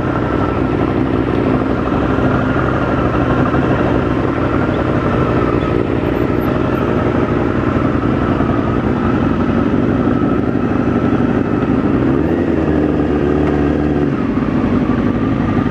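A vehicle engine runs steadily, mixed with road and wind noise, and its note changes briefly about twelve seconds in.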